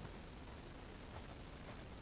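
Faint steady background hiss with a few soft clicks.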